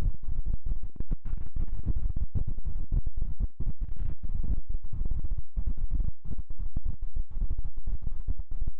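Strong gusty wind buffeting the microphone: a loud, irregular low rumble that cuts in and out.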